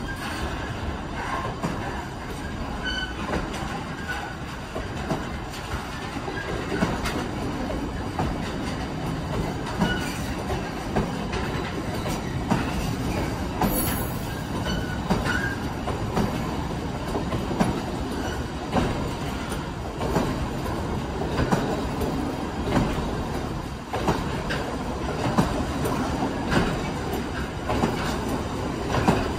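Freight train of empty double-deck car-carrier wagons rolling past close by: a steady rumble of wheels on rail, with clicks as the wheels cross rail joints and a few brief, faint wheel squeals.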